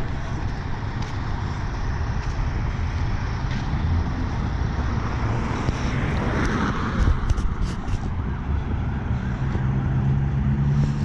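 Road traffic going by on a busy street: cars and trucks passing, with a swell about six seconds in and a few sharp clicks soon after. Near the end the steady low engine sound of an approaching semi truck grows stronger.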